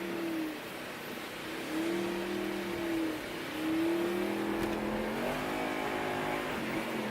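Audi R8's engine running while driving, its note dropping and climbing again several times as it accelerates and eases off, with a longer climb about five seconds in.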